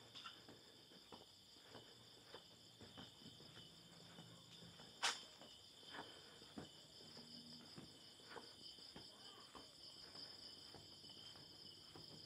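Faint night chorus of crickets trilling steadily at a high pitch, with soft footsteps on a paved path about twice a second and one sharp click about five seconds in.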